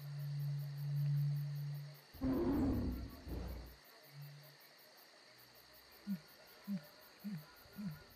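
Animal sound effects over steady chirping insects: a low drawn-out growl, a loud roar about two seconds in, and a run of short calls near the end.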